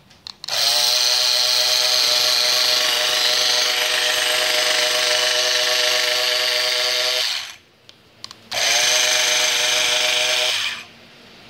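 Handheld Yamata electric round-knife cloth cutter switched on and spinning up with a rising whine, then running steadily as its round blade cuts through a layer of fabric. It stops about seven seconds in, a few clicks follow, and it runs again for about two seconds before switching off.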